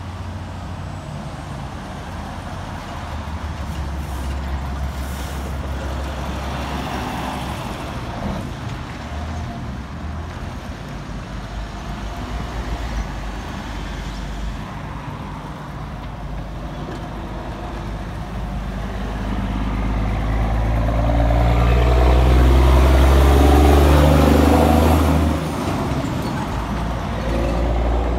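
Diesel semi-trailer truck hauling a refrigerated trailer, pulling away and driving past, its engine note growing louder to a peak a few seconds before the end, then dropping off sharply.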